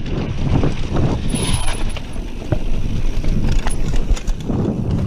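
Mountain bike descending fast on dirt singletrack: wind rumbling on the microphone and tyres on dirt, with the bike rattling and knocking over bumps in quick irregular clicks.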